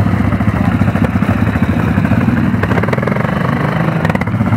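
ATV engine idling steadily, a fast even chugging.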